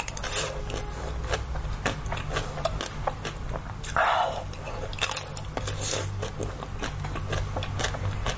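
Close-up biting and chewing of frozen chocolate-coated jelly cubes: crackly clicks of the frozen coating breaking and wet mouth sounds, with one louder bite about four seconds in.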